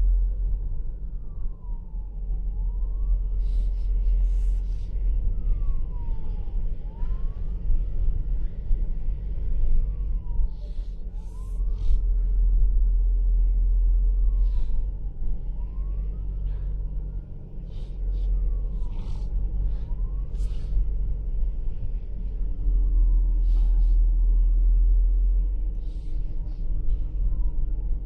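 A wailing siren sweeping slowly up and down, each rise and fall taking two to three seconds. Under it is a steady low rumble of a slow-moving vehicle, heard from inside its cabin.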